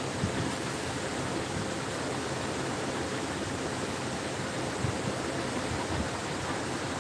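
Steady even hiss, with a few faint soft taps and clicks from two cats eating out of a steel bowl.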